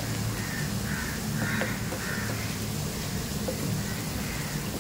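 Sliced onions sizzling steadily as they fry in hot oil, stirred with a wooden spatula that gives a few light scrapes. A bird calls four times in the first two seconds or so.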